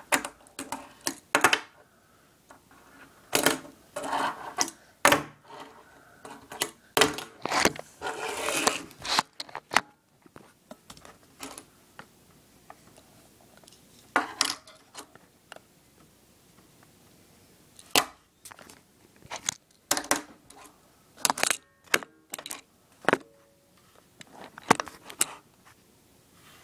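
Tech Deck fingerboard being popped, flipped and landed on a wooden surface: irregular sharp clacks of the plastic deck and trucks striking the wood, with two short stretches of about a second of the wheels rolling.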